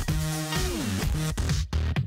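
Electronic background music with a steady beat; a synth note slides down in pitch about half a second in.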